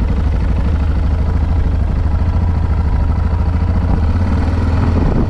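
Yamaha XT660Z Ténéré's single-cylinder four-stroke engine running steadily, with a fast, even pulsing exhaust note.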